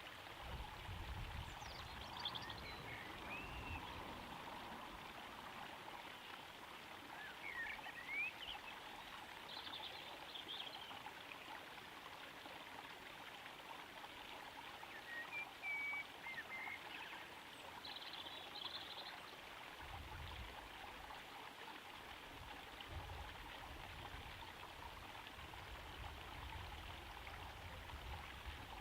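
Small garden pond waterfall trickling steadily into the pond, with a few brief bird chirps now and then.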